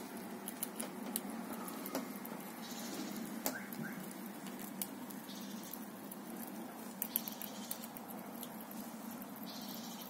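Eurasian red squirrel gnawing a nut held in its paws: irregular crisp clicks and crunches, several a second, with a few louder cracks.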